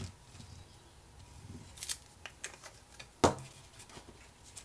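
Paper-crafting handling sounds: cardstock rustling and crackling as an embossed panel is glued and pressed onto a card, with one sharp knock on the table about three seconds in.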